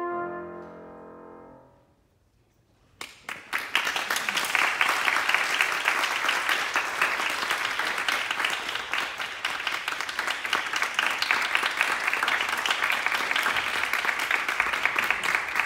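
The last held note of a brass solo with piano accompaniment fading away, then about three seconds in an audience breaks into steady applause.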